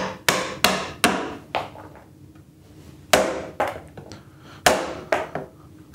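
Mallet blows driving a 1-inch chisel down into a pine board, chopping out waste between saw kerfs as the wood splits away. Sharp knocks come in a quick run, pause about a second and a half, then come in another run.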